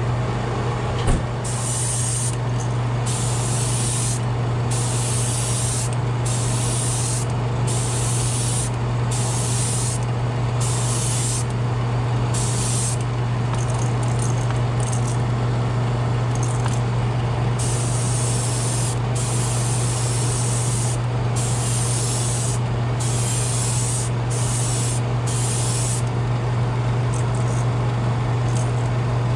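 Master airbrush spraying paint in many short hissing bursts, trigger pulled and released again and again, over a steady low motor hum. A single knock about a second in.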